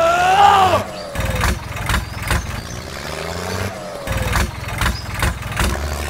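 Tractor engine chugging unevenly, about two beats a second, with a rising-then-falling whine in the first second as it labours to pull out of the sand.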